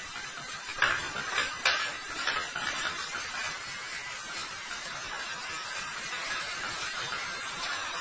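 Radio-controlled truck driving slowly over gritty concrete: a steady gritty hiss, with a few sharp clicks and ticks in the first couple of seconds.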